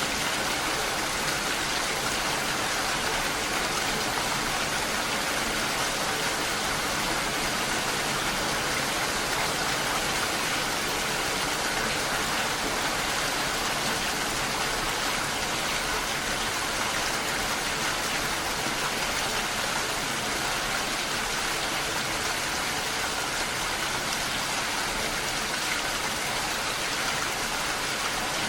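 Steady rainfall: an even, continuous hiss of rain falling, with no thunder or breaks.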